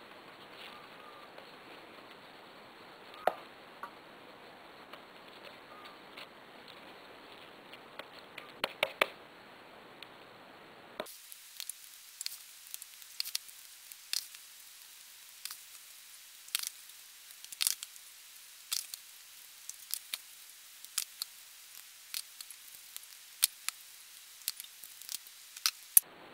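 Quiet, irregular sticky clicks and soft smacks of oiled hands pulling and shaping whole-wheat bread dough into rolls and setting them in a glass baking dish, over a faint hiss.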